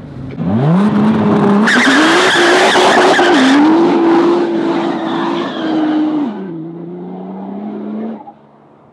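Nissan GT-R's twin-turbo V6 launching at full throttle, the engine note climbing fast while the tires spin and squeal on the asphalt for a couple of seconds. The pitch drops twice as it upshifts while still fighting for traction, then the sound falls away near the end.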